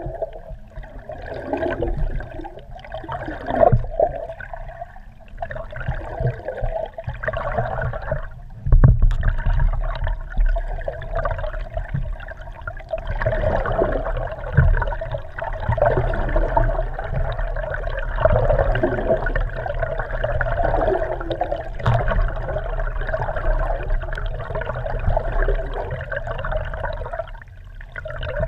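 Water rushing and gurgling around a GoPro Hero3's waterproof housing, heard from underwater beneath a moving kayak, with a few low knocks.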